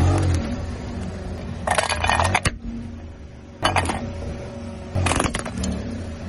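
Car tyre rolling over and crushing brittle objects one after another: three crunching, cracking bursts with a clink of breaking pieces, over the low hum of the car's engine.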